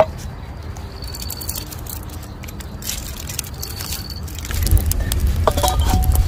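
A low steady rumble with a few faint ticks. About two-thirds of the way through it grows louder as a wood fire burns under a wok.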